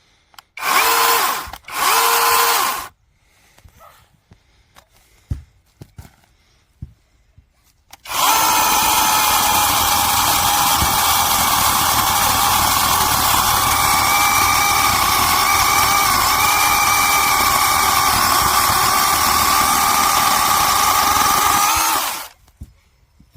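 Cordless 6-inch brushless mini chainsaw run in two short bursts, then running continuously for about fourteen seconds with a steady high whine while cutting branches.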